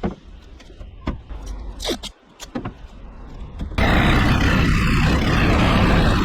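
A few scattered knocks and clicks, then a power saw starts abruptly about four seconds in and runs loudly, cutting the fan opening through the van's sheet-metal roof.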